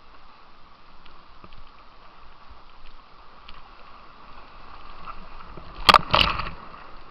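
Rushing white water heard from a kayak on an artificial rapid, a steady hiss, broken near the end by a loud splash of water hitting the camera, two quick surges close together.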